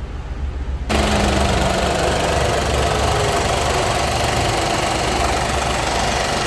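Nissan Magnite's 1.0-litre three-cylinder petrol engine idling steadily, running again now that the water-damaged airbag (SDM) module that kept it from starting has been replaced. About a second in, the sound turns abruptly louder and fuller, then holds steady.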